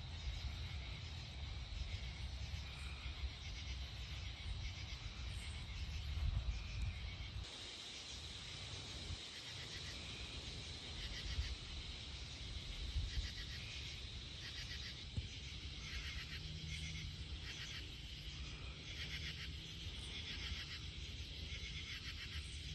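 Night-time insects chirping in repeated pulsing trains over a faint steady high trill, with a low rumble underneath that drops away about seven and a half seconds in.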